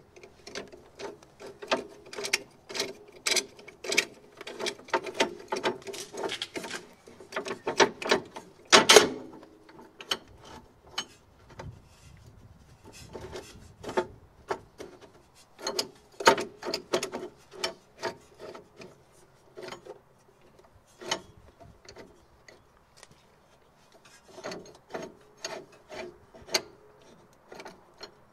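Hands working on a Mercedes W201's front suspension around the coil spring: irregular metallic clicks, knocks and rubbing, with a burst of louder clacks about nine seconds in and sparser ticks later on.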